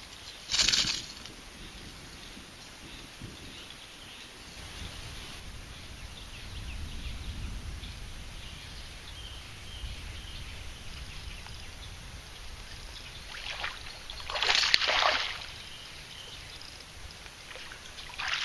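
Outdoor waterside ambience with wind rumbling on the microphone, broken by two short rushing noise bursts: one about half a second in, and a louder one around fourteen to fifteen seconds in.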